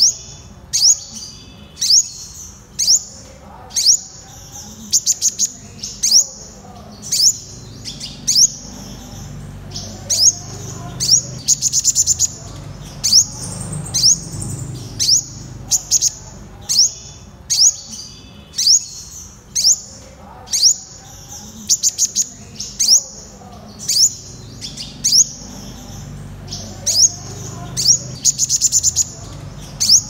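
Purple sunbird calling: sharp, high chip notes repeated about once a second, broken now and then by a quick rattling run of several notes.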